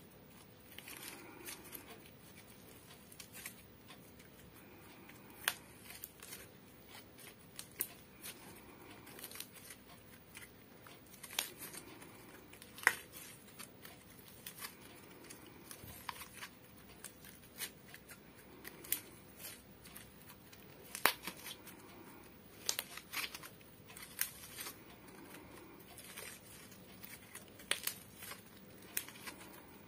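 Thick slime being kneaded and squeezed by hand, giving sticky crackling with sharp pops and clicks at irregular intervals.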